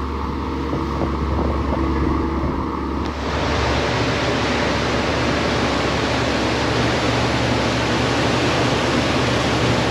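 A boat's engine running with a steady low hum. About three seconds in, the sound changes abruptly to loud rushing wind and water noise over the engine drone.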